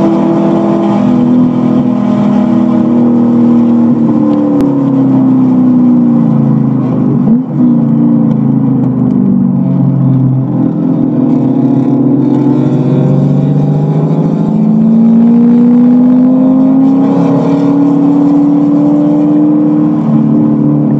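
Corvette V8 engine heard from inside the cabin on track. Its note falls as the car brakes hard for a corner, with a brief rev blip partway through the slowdown, then rises steadily as the car accelerates away.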